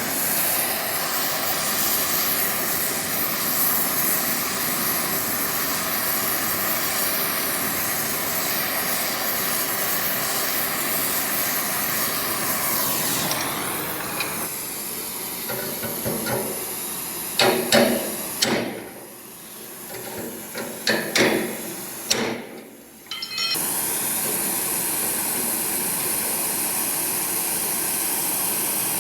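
Oxy-acetylene torch with a number 2 tip hissing steadily as it heats sheet steel. In the middle a few sharp metal knocks sound and the torch hiss drops out twice briefly before running steadily again.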